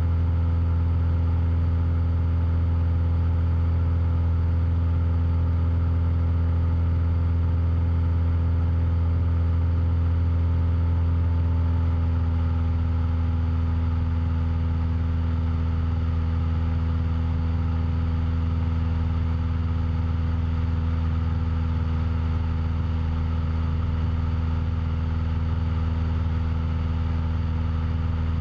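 Cessna 172's piston engine and propeller droning steadily at a constant pitch in cruise flight.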